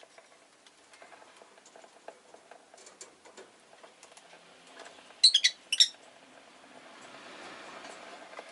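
Rosy-faced lovebird giving a quick burst of four or five sharp, high chirps about five seconds in, among faint small clicks and taps. A soft rushing noise swells near the end.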